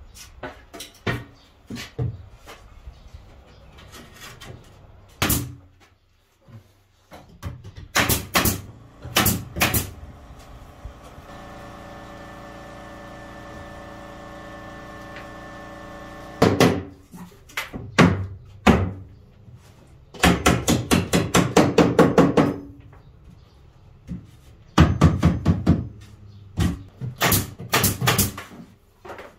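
Carpentry on a ceiling: a string of sharp knocks and clatters, with a steady hum for several seconds in the middle. Near the end come fast runs of sharp shots from a pneumatic nail gun fixing wooden ceiling boards.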